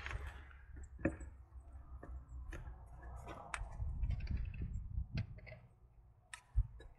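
Gloved hands handling a small plastic bottle and test kit: scattered clicks, light taps and rustling, over a steady low rumble. A single deeper knock comes near the end.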